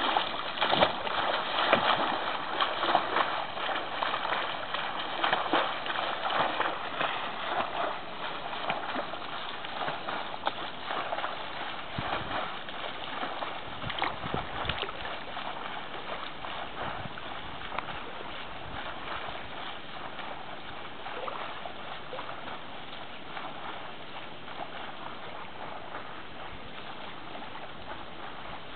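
A swimmer's arm strokes splashing in open water, loudest at first and fading steadily as the swimmer moves away.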